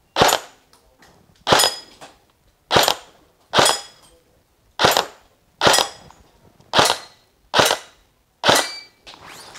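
G&G GR14 airsoft electric rifle firing nine single shots at an uneven pace of about one a second, each crack followed by a short metallic ring of a BB striking a steel plate target.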